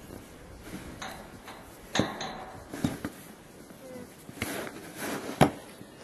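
Snow shovel working packed snow: about four sharp knocks of the blade, the loudest near the end, with scraping between them.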